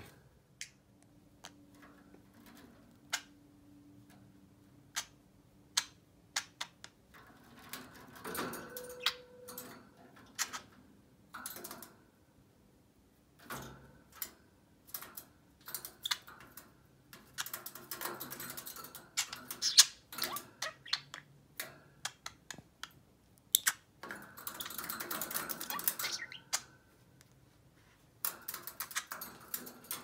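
Budgerigars' beaks and claws clicking and tapping on a wire birdcage as scattered sharp clicks. In the second half come several longer bursts of budgie chatter.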